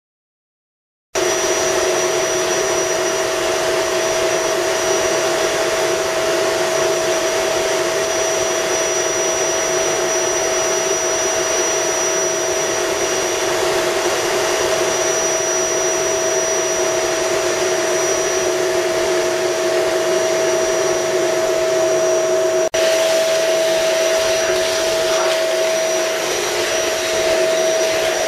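Dirt Devil canister vacuum cleaner running: a steady motor drone with a high whine over the rush of air. It begins suddenly about a second in, with a momentary break near 23 seconds.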